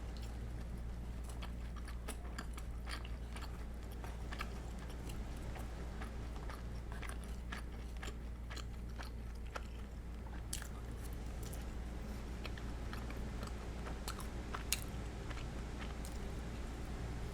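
Close-up chewing and biting of karaage, Japanese fried chicken, with irregular sharp clicks and crunches from the mouth.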